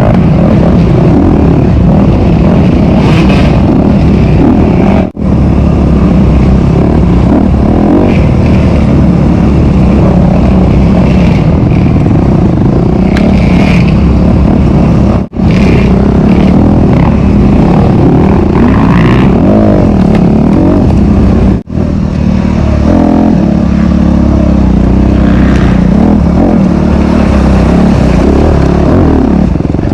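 Honda CRF250RX single-cylinder four-stroke dirt bike engine running hard while being ridden, its pitch rising and falling as the throttle opens and closes, heard close up from a rider-mounted camera. The sound drops out for an instant three times.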